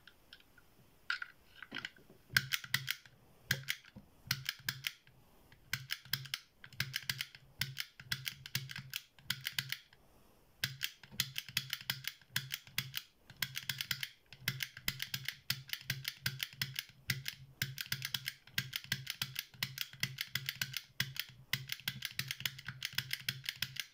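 Brockhage snap gun firing against the pins of an IFAM padlock: a few single clicks, then long runs of rapid clicking in bursts about a second long with short pauses, a low hum under each burst. The padlock does not open.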